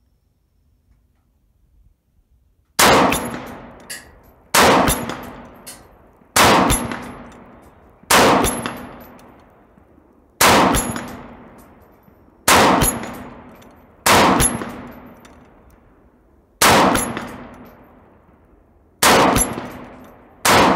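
Semi-automatic rifle shots from a PSA AR-47 with a 10.5-inch barrel firing 7.62x39 Wolf steel-case ammunition. Ten single shots come about two seconds apart, starting about three seconds in, and each trails off in a long echo.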